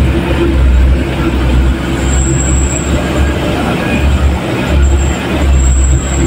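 Truck running, heard from inside the cab on a rough dirt road: a deep steady engine and road rumble that dips briefly now and then. A thin high whine comes and goes from about two seconds in.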